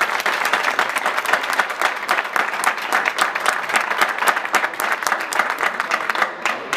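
A crowd applauding: many hands clapping in a dense, steady patter that thins out near the end.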